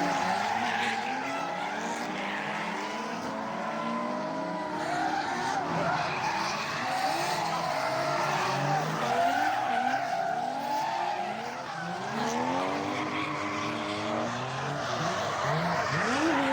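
Drift cars on track, several engines revving up and dropping back over and over, with steady tyre squeal underneath.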